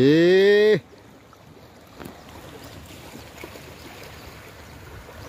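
A loud shout rising in pitch, about a second long, cut off abruptly at the start. After it there is only a faint, even hiss of wind and water at the shoreline.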